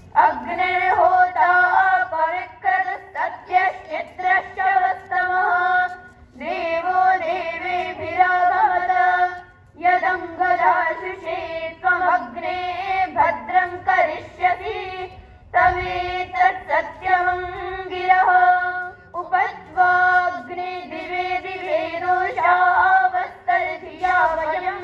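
A group of girls singing together in one melody line, in phrases of a few seconds with short breaks between them.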